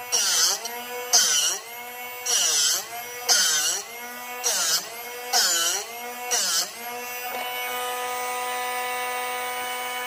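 Drill Doctor sharpener's motor running as a 3/8-inch drill bit held in its chuck is worked against the diamond wheel, with about seven short grinding strokes roughly a second apart. The motor's pitch dips under load with each stroke. After about seven seconds the grinding stops and the motor runs on unloaded.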